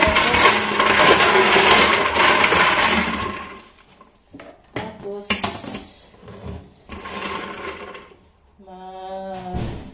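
Ice cubes clattering and rattling in a plastic juice pitcher for about three and a half seconds, followed by a few sharp clicks around five seconds in.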